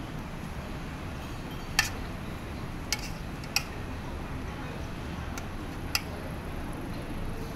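A metal fork and spoon clinking against a stainless steel compartment tray: four or five sharp, short clinks spread out over steady background noise.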